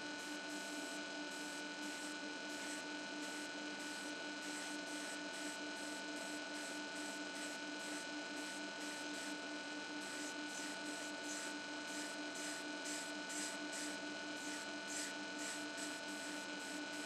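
Faint, steady electrical hum made of a few fixed tones over a low hiss, unchanging throughout.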